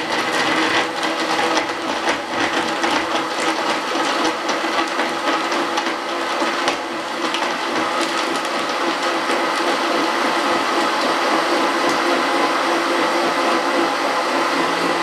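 Electric blender's motor running steadily at full speed, blending peach pieces, water, sugar and ice into juice.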